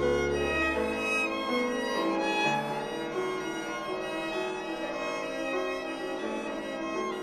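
Organ playing slow music in held chords; a low bass note stops about a second in and the upper voices carry on with changing notes.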